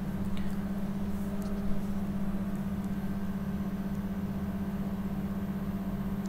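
Steady low hum with a fine, rapid pulsing buzz in it, and a faint tap about two seconds in.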